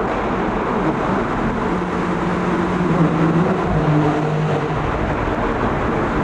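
Porsche 981 Boxster GTS's 3.4-litre flat-six running at low, fairly steady revs under road and tyre noise. The engine note drops a step about halfway through.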